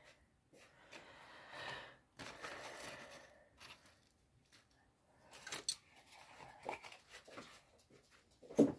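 Plastic packaging rustling and crinkling as it is handled, then scattered small clicks and knocks, with one sharp knock near the end.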